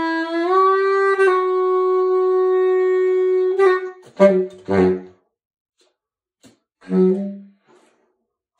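Solo baritone saxophone holding a long high note that bends up slightly, then breaking into a few short, sharply attacked lower notes, and after a pause one last short low note that fades away.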